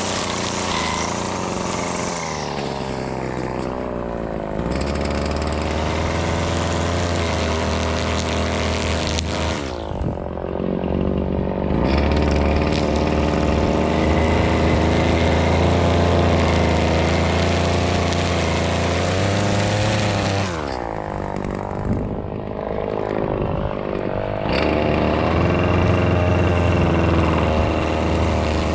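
Husqvarna 525L two-stroke string trimmer running at high revs while cutting, with the throttle let off and squeezed again three times so the engine note drops and climbs back.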